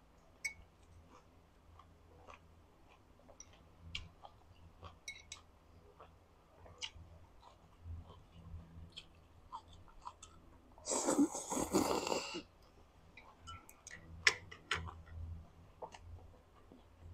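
Close-miked eating sounds of a person eating rice noodles and boiled chicken: soft chewing and scattered small mouth clicks and smacks, with one loud slurp of noodles about eleven seconds in lasting a second and a half.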